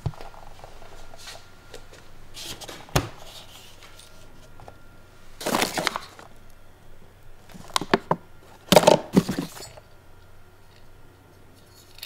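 Hands rummaging in a portable fridge-freezer packed with frozen food: plastic bags rustling and crinkling, a sharp knock about three seconds in, and louder bursts of rustling around six and nine seconds, over a faint steady hum.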